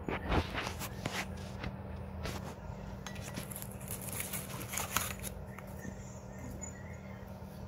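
Faint scattered clicks and crackles over a steady low hum, mostly in the first five seconds.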